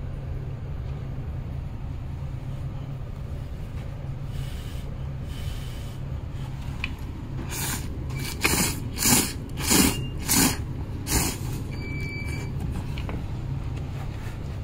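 Buckwheat soba noodles being slurped: five or six short, loud slurps in quick succession about halfway through, over a steady low hum.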